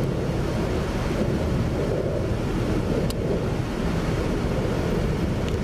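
Steady wind buffeting the microphone, a continuous rumbling rush that covers everything else.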